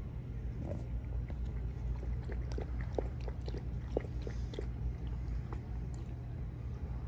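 Bernese Mountain Dog puppy working its mouth at a collapsible silicone bowl: a run of small clicks and smacks, about three a second at their densest, over a steady low hum.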